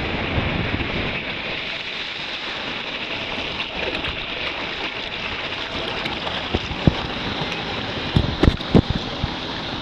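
Steady rush and splash of water on a tube water slide, with a few sharp knocks near the end.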